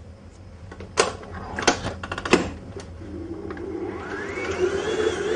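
A few clicks, then an electric stand mixer's motor starting up about three seconds in and kneading bread dough: a steady hum with a whine that rises in pitch as the motor speeds up.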